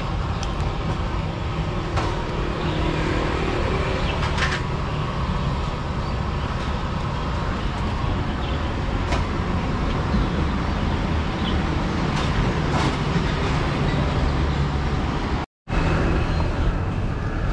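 Steady city street traffic noise, a continuous hum of passing cars, with a few faint clicks and clatters over it. The sound cuts out completely for a moment near the end.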